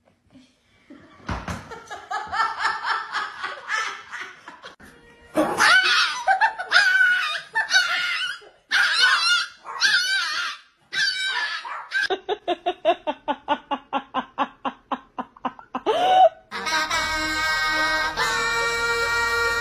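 People laughing in repeated bursts, with a quick run of rhythmic 'ha-ha' laughter at about four pulses a second past the middle. Music with steady sustained notes starts near the end.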